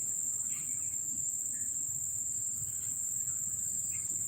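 Crickets chirring: a steady, unbroken high-pitched trill.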